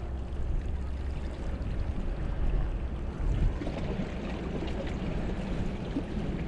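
Seawater washing and swirling among the boulders of a rock jetty, a steady rushing with a low rumble underneath.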